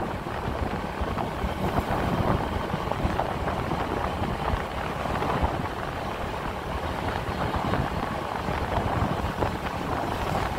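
A motorbike riding along a road: steady engine and road noise with wind buffeting the microphone.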